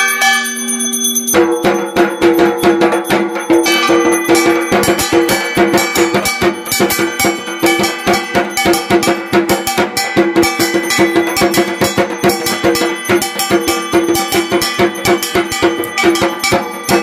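Puja percussion: a drum beaten in a fast, steady rhythm with metal bells clanging along. It starts about a second in, after a few held ringing tones.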